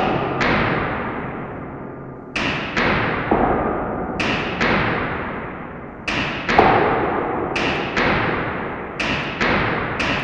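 Booming, reverberant impacts struck in pairs, the two hits about half a second apart and a new pair every one and a half to two seconds, quickening slightly. Each hit rings out and fades slowly.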